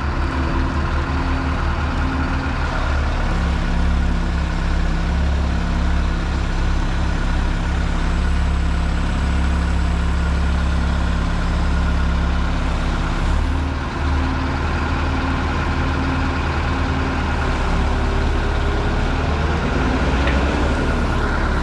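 The diesel engine of a 1998 John Deere 410G loader backhoe running steadily at idle. Its note shifts slightly about three seconds in and again around thirteen seconds, and a faint rising tone comes near the end.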